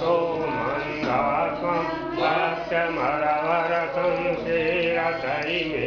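Hindu devotional mantra chanted by several voices, men's voices to the fore, without a break.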